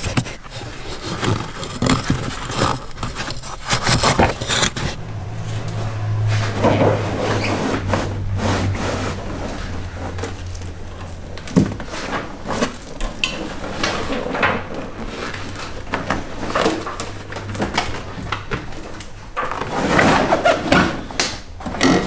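Carpet being wrenched and dragged out of a car's floor pan: repeated scraping, rustling and knocks of the stiff backed carpet against metal and trim, with a low steady hum through the middle.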